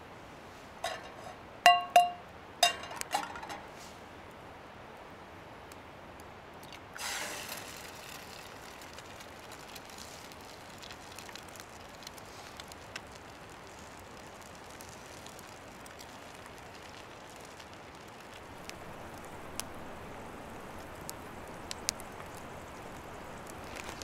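A few sharp clinks of hard objects, each ringing briefly, in the first few seconds, then a short rush of noise about seven seconds in. The rest is a quiet, steady background with faint scattered ticks.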